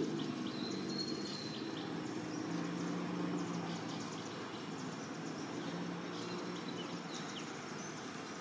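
Steady outdoor background noise with faint, short high chirps and clicks over a low steady hum.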